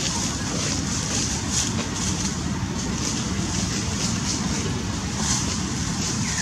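Steady outdoor background noise: a low rumble with a hiss above it that swells briefly every second or so.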